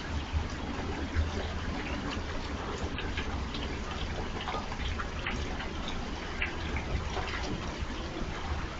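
Steady rushing noise with a low rumble underneath, with many faint, short high-pitched chirps scattered through it.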